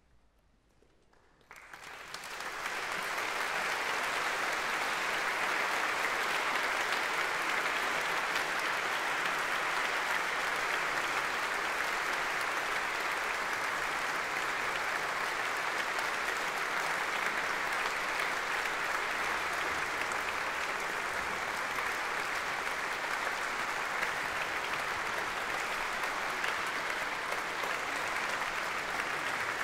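Near silence for about a second and a half, then a concert audience starts applauding, and the applause goes on steadily.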